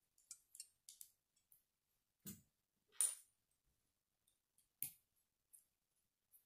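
Plastic Lego bricks clicking and snapping together as a small model car is put together by hand: a scatter of short clicks, the loudest about three seconds in and again near five seconds, with a soft knock a little after two seconds.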